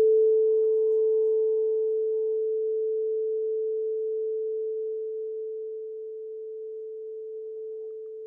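Singing bowl ringing on one steady tone and slowly fading away, its higher overtones dying out first.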